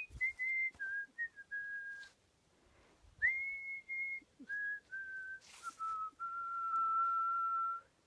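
A person whistling a melody with the lips, clear single notes stepping up and down. Two phrases of short notes are split by a pause of about a second, and the tune ends on a long held note that stops near the end.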